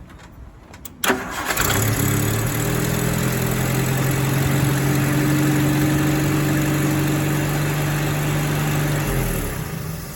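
Rover P4 80's four-cylinder petrol engine being started. It catches about a second in after a brief crank, idles steadily and is switched off near the end. The test run is on a freshly replaced ignition lead, and the engine runs normally.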